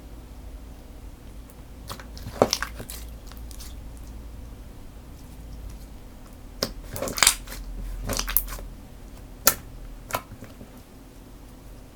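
Slime being squished and poked by hand, giving a few irregular bursts of sticky crackling and popping.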